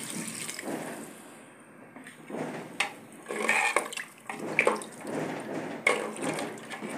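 Water poured from a plastic jug into an aluminium pressure cooker of curry, a rushing pour for about two seconds. Then a steel ladle stirs the curry, scraping and clinking against the side of the pot.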